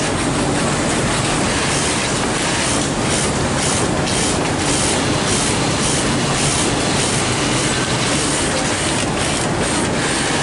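Industrial lockstitch sewing machine stitching a waistband seam: a loud, steady mechanical din with a fast clatter of needle strokes that thickens about three seconds in and again near the end.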